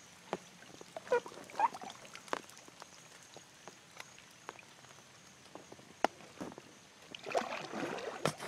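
Paddling a kayak on a quiet creek: scattered light knocks and drips from the paddle, a couple of short chirping animal calls about a second in, and a longer splashing stroke near the end.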